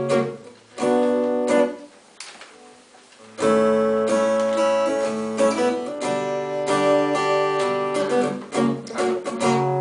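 Acoustic guitar strummed in chords, dropping to near quiet for about a second and a half a couple of seconds in, then strumming again steadily.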